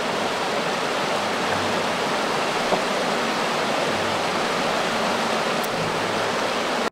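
Mountain river rushing over rocks through rapids, a steady roar of white water.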